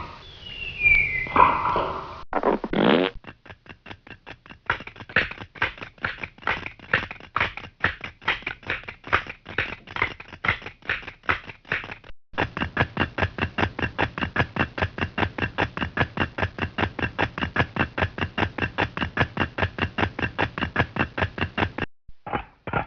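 Vintage cartoon stinger sound effects: a few quick falling whistle-like glides, then two long runs of rapid pulses at about five a second, the second run carrying a steady buzzing tone.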